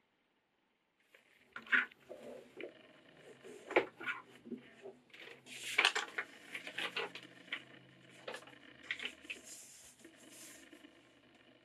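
Paper template being folded and pressed flat by hand on a leather hide: irregular crinkling and rustling with light taps and scuffs, starting about a second in.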